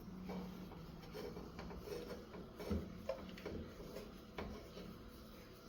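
Faint, irregular clicks and rubbing of a PVC pipe being twisted and pushed in by hand.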